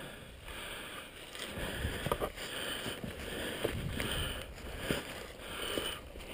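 Footsteps of people walking through dry fallen leaves: an uneven run of rustling, crunching steps with a few sharp snaps.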